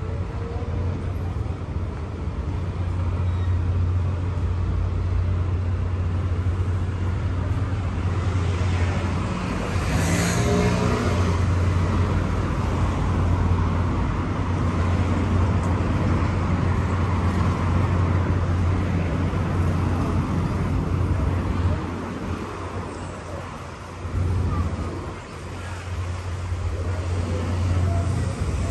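Street traffic ambience: vehicles passing by under a steady low hum, with a louder pass about ten seconds in and some voices of passers-by. The hum fades briefly a few seconds before the end.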